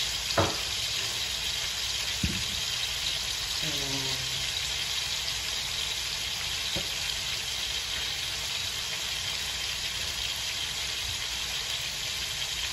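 Lamb chops frying in oil and melting butter in a skillet, a steady sizzle. A sharp knock about half a second in and a lighter one a couple of seconds later.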